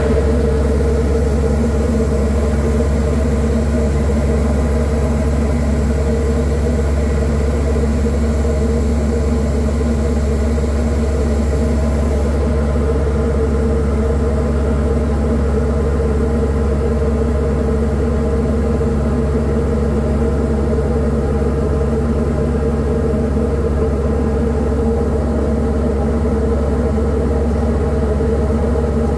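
Diamond DA40's single engine and propeller running steadily at cruise power, a constant drone heard inside the cabin.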